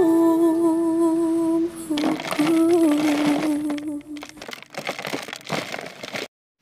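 A singer holds the ballad's last sung note over soft backing, then the song trails off into scattered noise and cuts to dead silence shortly before the end.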